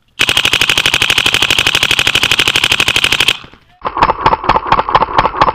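Dye DM12 electronic paintball marker firing a long rapid string of shots, more than ten a second for about three seconds, heard close from a camera mounted on the marker. After a brief pause, a second run of rapid pops with a duller, lower sound follows.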